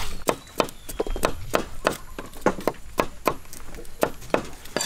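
Kitchen knife chopping on a thick round wooden chopping block, an even run of knocks about three a second.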